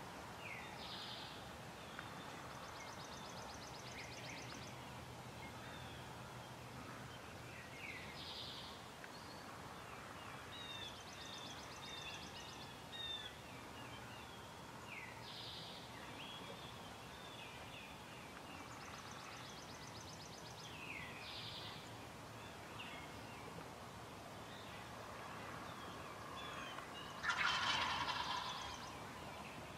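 A wild turkey gobbler gives one loud gobble near the end, with small birds chirping faintly throughout.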